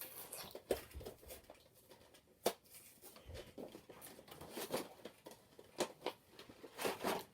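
Action-figure packaging being handled and opened: irregular crinkling, tearing and clicking of plastic and cardboard, with a sharp click about two and a half seconds in.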